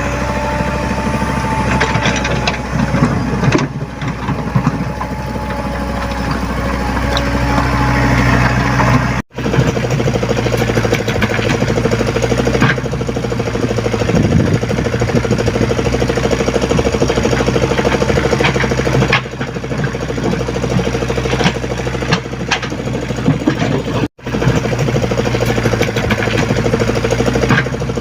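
Komatsu PC75UU mini excavator's diesel engine running steadily, with scattered short clanks and knocks.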